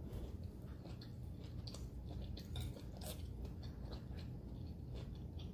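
A person chewing a mouthful of seitan and vegetable stir fry with brown rice, close to the microphone, with scattered soft clicks and crunches of the food.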